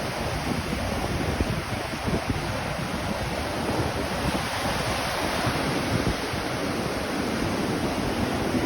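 Atlantic Ocean surf washing steadily, with wind buffeting the microphone.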